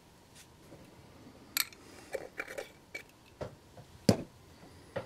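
Handling noise on a workbench: a series of separate clicks and knocks as small objects are picked up and set down, the loudest about four seconds in.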